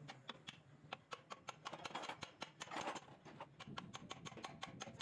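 An irregular run of light clicks and taps from hands and tools working on a truck gearbox. Two brief scraping rushes come about two and three seconds in.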